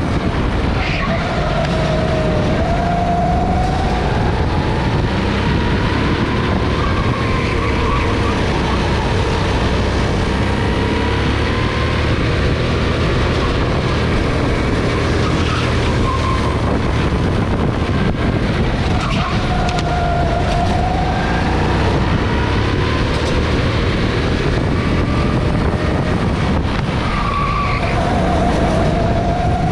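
Go-kart engine running at speed, heard from onboard the kart, under a steady rush of noise. Its note rises and falls several times as the kart brakes and accelerates through the corners.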